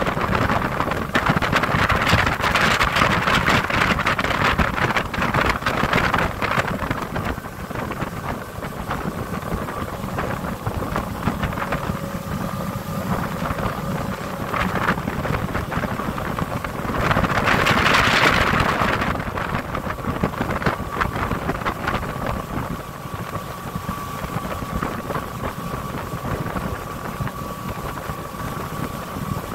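Small motorboat running at speed: the engine drones under wind buffeting the microphone and water rushing past the hull. Two louder gusts come in the first few seconds and about eighteen seconds in.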